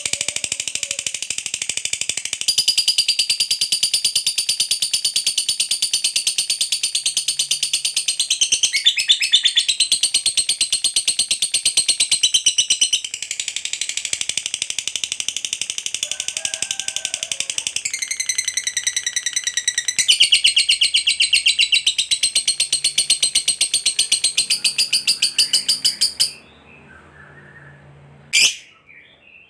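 Lovebird giving a long, shrill, unbroken chatter of very rapid repeated notes, the 'ngekek panjang' prized by Indonesian lovebird keepers. The chatter runs for about 26 seconds, shifting pattern a few times, then stops abruptly, followed by a couple of short chirps near the end.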